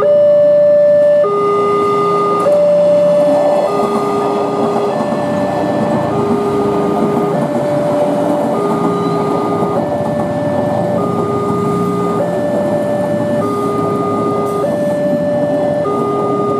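Level-crossing warning alarm sounding a two-tone electronic signal, a higher tone then a lower one, alternating about every second and a quarter. Under it runs the steady noise of a JR 203 electric commuter train passing over the crossing.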